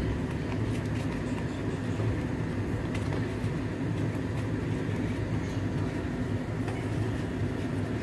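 A steady low hum, with light scrapes and taps of a wooden spatula stirring millet flour into water in a metal pan for dhido.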